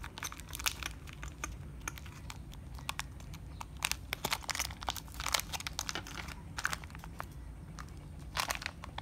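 A foil-and-plastic blister packet being torn open and crinkled by hand: a run of irregular crinkles and crackles, with louder ones about four, five and eight and a half seconds in.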